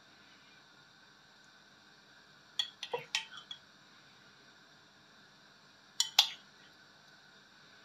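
Metal spoon clinking and tapping against a dish as pieces of jelly are spooned onto a layer of custard: a short cluster of clicks about three seconds in, then two sharp clinks about six seconds in.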